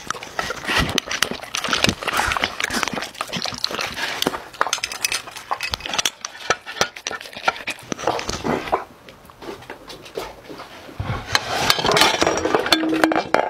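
Black Labrador eating from glass dishes: close, wet licking and crunching of kibble, with its muzzle clinking against the glass. The eating pauses for about two seconds past the middle, then resumes with a brief squeak near the end.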